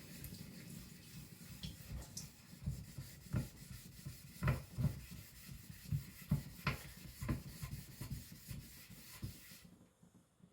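Gritty, irregular rubbing strokes on an aluminium oxide whetstone as its clogged surface is refreshed to expose fresh abrasive. The strokes die away near the end.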